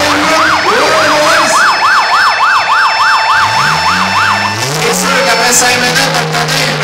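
A yelp-type siren wails rapidly up and down, about four sweeps a second, then stops about four and a half seconds in. Demolition derby car engines run underneath it, and some rev up near the end.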